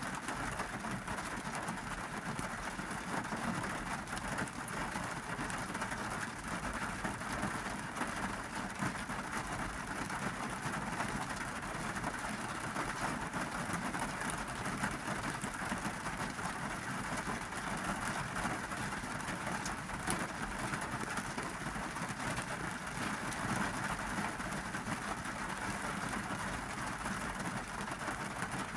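Monsoon rain falling on a car's roof and windows, heard from inside the cabin as a steady patter.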